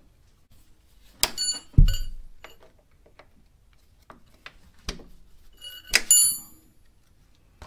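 Steel needle-nose pliers working a cotter pin out of a motorcycle brake pedal clevis: a few sharp metal clinks that ring briefly, with a low thump about two seconds in as the loudest sound.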